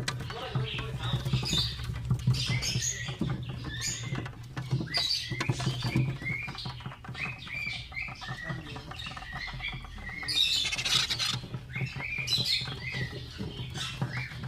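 Baby Quaker parrots (monk parakeets) making many short, high squeaky chirps, one after another, with a busier burst of calls about ten seconds in.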